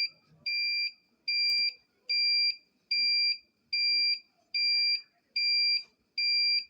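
Electronic alarm buzzer of a hatcher/incubator controller beeping steadily: a high single-pitched beep repeating a little more than once a second.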